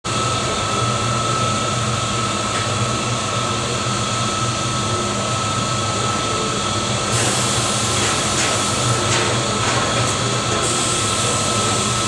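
Biomass gasifier running with its fuel gas burning as a large open flame in a brick burn chamber: a steady rushing noise with a constant high-pitched whine and a low hum through it. The hiss brightens for a few seconds about seven seconds in.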